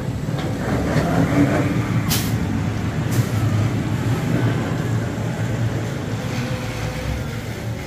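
Launched Lightning Rod roller coaster train rumbling along its wooden track as it pulls away from the station and heads up the launch hill, with two short hissing bursts about a second apart.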